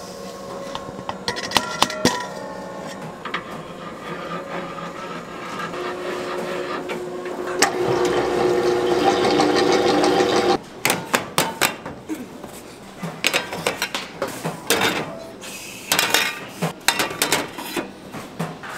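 Bakery kitchen work: a kitchen machine runs loudly for about three seconds and cuts off suddenly, followed by a run of clattering knocks and clinks of utensils and pans.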